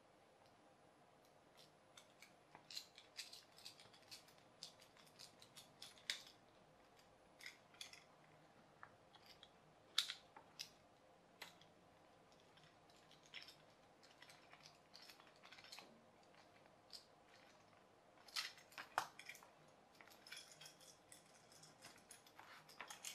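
Quiet, irregular clicks, ticks and scrapes of a small precision screwdriver turning screws into a plastic dynamo-torch casing while the plastic parts are handled. The sharpest clicks come about ten seconds in and again around nineteen seconds.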